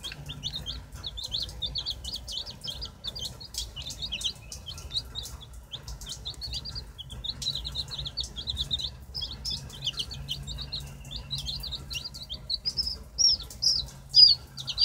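A brood of baby chicks peeping constantly in rapid, high-pitched peeps, with scattered sharp clicks. From about 13 seconds in, a few louder, longer peeps stand out.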